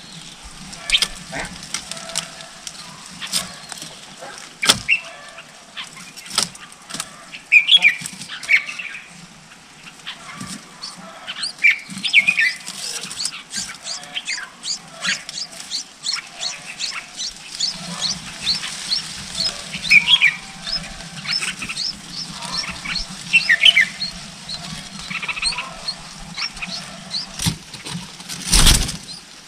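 Red-whiskered bulbuls chirping at a nest of chicks: short high calls that quicken into a fast run of ticking chirps through the middle. A loud flutter comes near the end.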